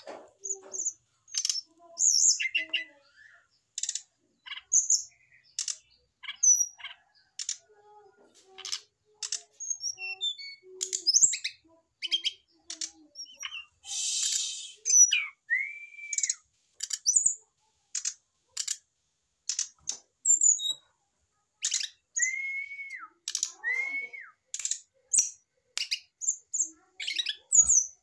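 Brown-chested jungle flycatcher singing: a long, rapid run of short, sharp high chirps and clicking notes, with a brief hissy note in the middle and a few lower, arched whistles later on.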